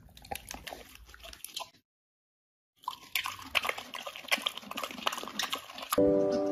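A pig chewing pickled cabbage with wet smacking and clicking sounds, broken by a short total silence about two seconds in. Music with chiming tones starts near the end.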